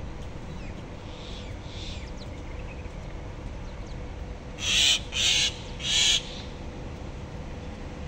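Common myna giving three short, harsh calls in quick succession about halfway through, with fainter bird calls earlier.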